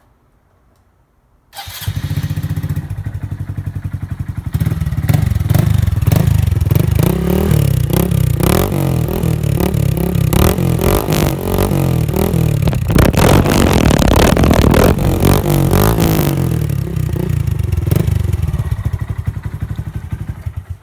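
Honda Grom 125cc single-cylinder motorcycle engine with a cheap $100 aftermarket exhaust. It starts about a second and a half in, then idles and is revved up and down repeatedly, and it stops suddenly at the end.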